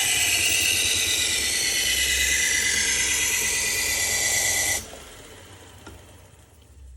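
Steel knife blade ground on a belt grinder's worn 120-grit Cubitron belt, a loud hiss with a steady whine while the bevel is cut and a burr raised. About five seconds in the grinding cuts off suddenly, leaving a faint hum.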